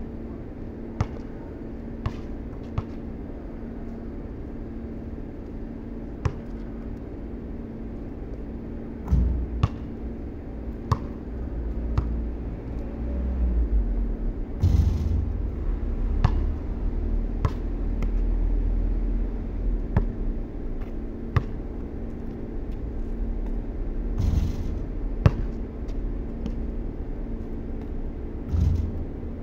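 A basketball knocking off the backboard and rim and bouncing on concrete during shooting practice. Sharp single knocks come at irregular intervals a second or a few apart, over a steady low rumble and a faint hum.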